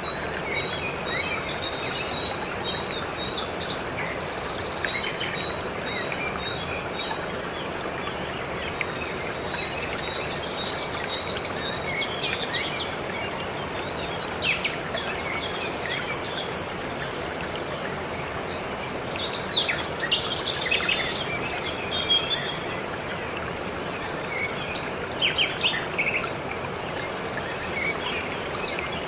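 Steady rushing of a waterfall, with small birds chirping in short high bursts every few seconds over it.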